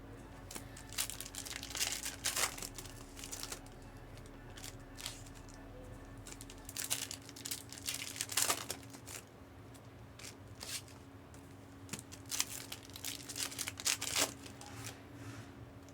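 Trading-card pack wrappers crinkling and being torn open, in short, irregular crackles.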